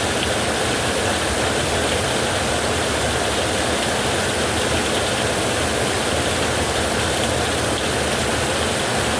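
Heavy rain drumming steadily on a metal roof, a dense, unbroken wash of noise with no lulls.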